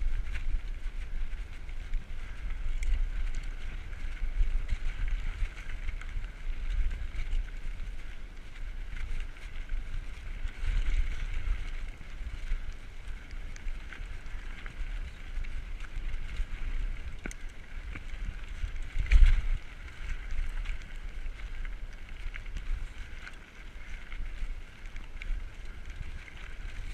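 Diamondback Recoil 29er mountain bike ridden fast over a dirt singletrack: tyres rumbling over dirt and stones, with wind buffeting the microphone. Small rattles and clicks from the bike come and go, and there is one harder knock about two-thirds of the way through.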